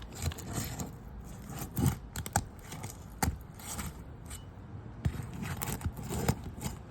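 Asphalt roof shingles being pried apart with a roof snake bar: scraping and tearing as the sealed tabs come unstuck, with a few sharp clicks.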